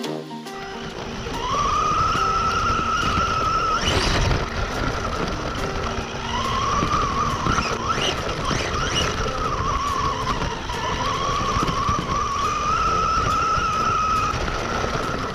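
RC monster truck heard from on board, driving over dirt and pine needles: its motor whine rises and falls with the throttle over a steady rumble from the tyres, with a hard knock about four seconds in.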